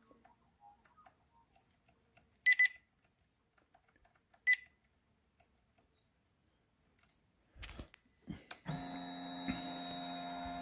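Two short electronic beeps about two seconds apart as the Indian Roadmaster's ignition is cycled. Near the end there are a couple of clicks, then a steady electric hum that runs for about two seconds and cuts off suddenly, typical of the fuel pump priming when the ignition is switched back on.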